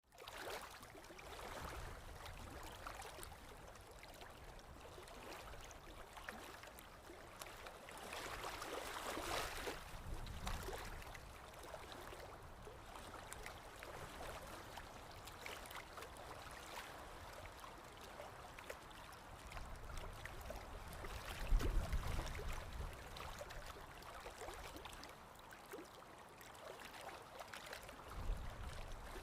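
Water running in a stream: a steady babbling with many small splashes, briefly fuller about a third of the way in. Two low rumbles come through, one about two-thirds of the way in and one near the end.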